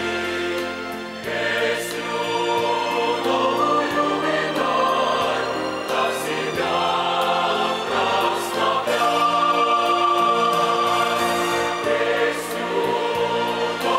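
Mixed choir of men's and women's voices singing a hymn in sustained, held chords, with a short break between phrases about a second in.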